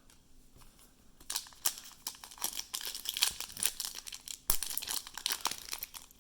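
Foil trading-card pack wrapper crinkling and tearing as it is ripped open, starting about a second in, with one sharper tear about four and a half seconds in.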